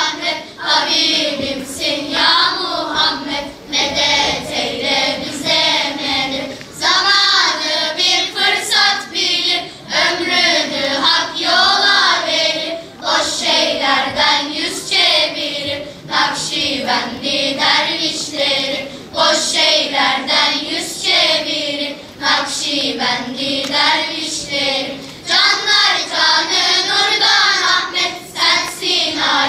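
Children's choir singing together.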